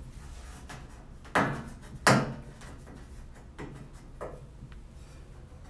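Clear adhesive tape being pulled up off a stainless steel surface, with hands and arm handling it: two loud, short noises about a second and a half and two seconds in, then two fainter ones.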